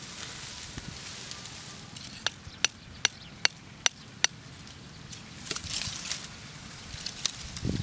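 Knife blade chopping into hard, dry ground: six sharp, ringing strikes spaced about a third of a second apart, starting about two seconds in.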